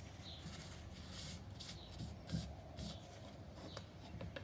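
Faint rubbing and light scratching of a paper towel wiped over the frets and wooden fretboard, cleaning off excess super glue, with a few soft handling bumps.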